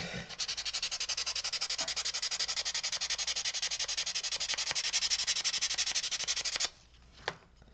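Sandpaper rubbed by hand over carved wood in rapid, even back-and-forth strokes, about nine a second, stopping abruptly near the end; a single light tap follows.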